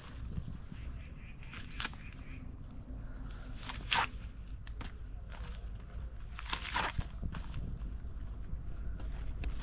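Insects droning steadily at a high pitch, with three short rustles of gear being handled, at about two, four and seven seconds in.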